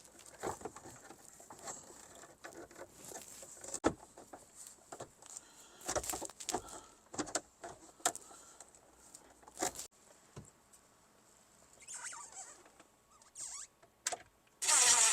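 Scattered light clicks and taps with a few short rustles, the sound of small parts and tools being handled.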